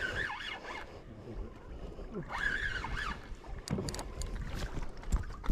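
Wind and water noise around a small fishing boat, with a few short high cries that rise and fall in pitch and some sharp knocks near the end.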